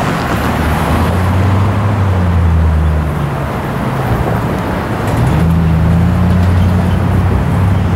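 Road traffic: a nearby vehicle engine's low drone over steady road noise, the drone shifting in pitch about a second in and again about five seconds in.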